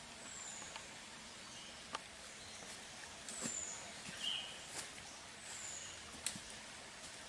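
Footsteps pushing through undergrowth and dry bamboo leaf litter, with sharp cracks of twigs and rustles every second or so. A high, thin falling whistle repeats about every two seconds.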